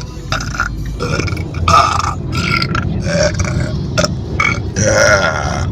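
One long, loud belch held without a break, its sound shifting every half second or so as the mouth changes shape.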